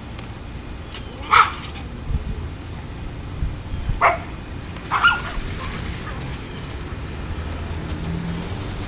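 Puppies yipping as they play: three short, high barks, the loudest about a second and a half in, then two more at about four and five seconds.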